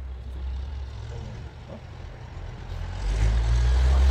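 A low, steady mechanical rumble like a running engine, getting louder about three seconds in.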